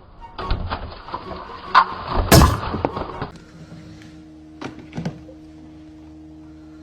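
A run of thumps and knocks, the loudest a sharp bang about two and a half seconds in, then a steady low hum with two short knocks.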